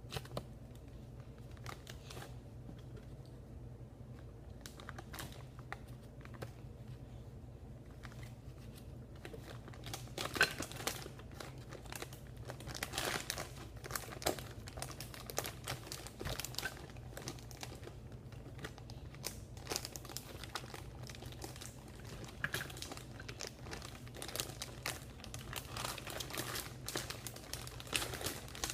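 Plastic packaging crinkling and rustling as it is handled, in irregular bursts with small clicks. The bursts are sparse at first and get busier from about ten seconds in, as someone tries to get cookie dough out of its wrapper. A low steady hum sits underneath.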